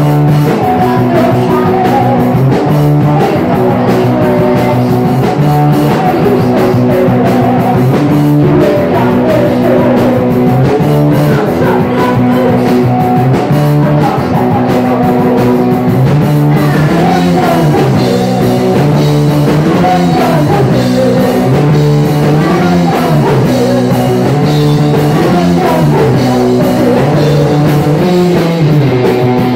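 A punk rock band playing live and loud: distorted electric guitars chugging through changing chords over a driving drum kit, with no break.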